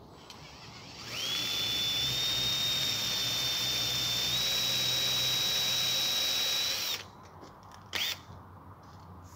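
Handheld electric drill boring a hole through an aluminium Modena 45 door profile: the motor whine starts about a second in, holds steady for about six seconds with two small steps up in pitch as the bit cuts, then stops. A brief second burst of the drill follows about a second later.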